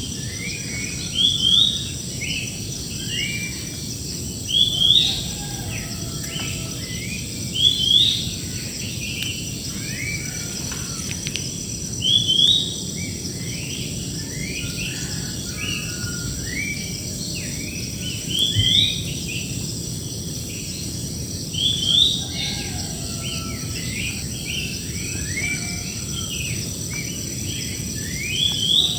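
Several birds singing, one repeating a loud rising phrase about every three to four seconds among many shorter chirps, over a steady high-pitched insect drone.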